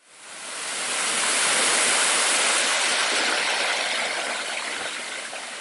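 Waterfall on a small brook: a steady rush of falling water that fades in at the start, is loudest about two seconds in, then slowly eases.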